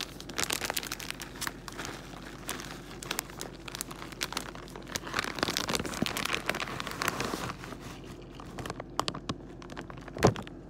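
Plastic bag of pre-shredded cheese crinkling and rustling as it is handled and the shreds are shaken out into a bowl. A single sharp knock near the end.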